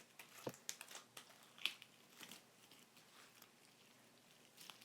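Faint, scattered sticky clicks and crackles of homemade glue-and-borax slime being stretched and squished by hand, most of them in the first couple of seconds.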